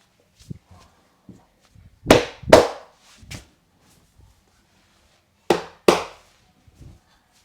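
A barber's hands striking during a head massage: two pairs of loud slaps about half a second apart, the pairs about three seconds apart, with a few light taps between them.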